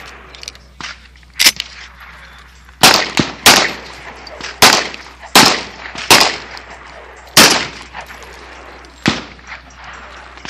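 Benelli M4 semi-automatic 12-gauge shotgun fired six times in fairly quick succession, the shots a little under a second apart, each followed by a short echo. A sharp clack comes about a second and a half in, before the shooting starts, and a weaker report follows near the end.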